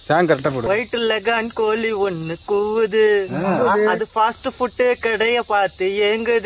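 A person singing a tune, with held, wavering notes, over a loud, steady, high-pitched insect drone.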